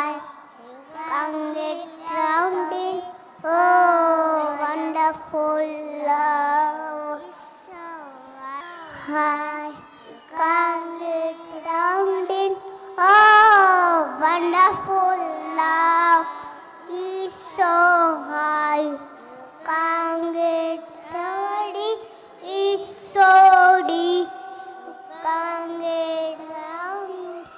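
Young children singing their daily school prayer, one sung phrase after another with short breaks between.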